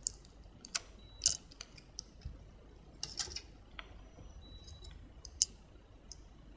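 Scattered small clicks and taps from hand-soldering a surface-mount Darlington array chip onto a circuit board, the iron tip touching the chip's pins. A faint high-pitched tone sounds briefly twice.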